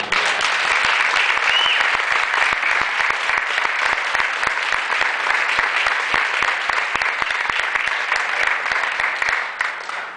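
Audience applauding with many hands clapping. It starts at once, holds steady and dies away near the end.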